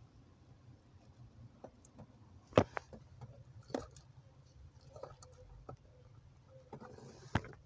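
Scattered clicks and knocks of plastic wiring connectors and wire bundles being handled under a car dashboard, the sharpest click about two and a half seconds in and another near the end.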